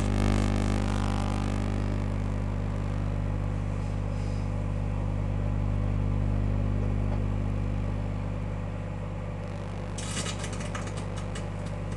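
Microwave oven running with a steady low electrical hum. About ten seconds in, a run of sharp crackles and clicks comes over it.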